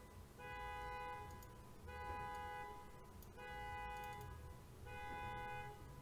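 Car alarm sounding: long, steady-pitched blasts about a second each, repeating every second and a half, four times here.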